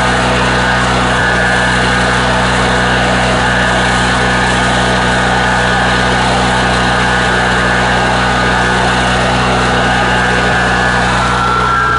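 Coleman Powermate Vantage 8000 portable generator's engine running steadily and loud, with no change in speed, freshly started after sitting almost a year.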